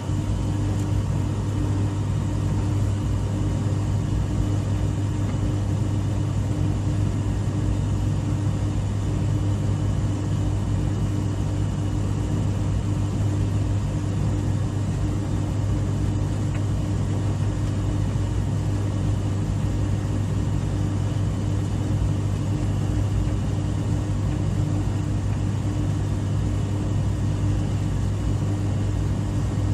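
Dryer running steadily: a constant low hum with a faint higher tone over an even rushing noise, unchanging throughout.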